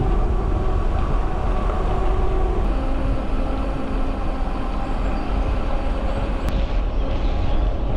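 Steady rumble of wind on the microphone and bicycle tyres rolling on an asphalt cycle path while riding, with a faint steady hum on top.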